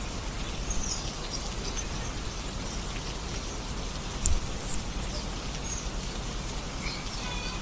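Steady rain falling, an even hiss of drops, with a few faint high chirps and a brief low thump about four seconds in.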